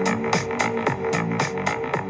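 Electronic music with a fast, steady beat, about four beats a second, over sustained synth tones.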